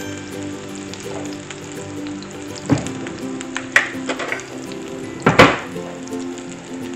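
Vegetarian chicken patties sizzling as they fry in a little olive oil in a small frying pan, with a few sharper crackles standing out, the loudest about five seconds in. Soft background music plays underneath.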